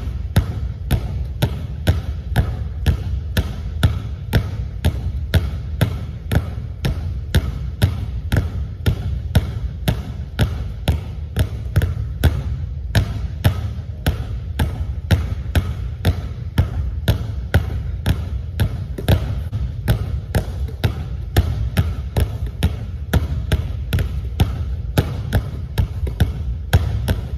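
Two basketballs being dribbled on a hardwood gym floor in a steady, even rhythm of sharp bounces, a little over two a second.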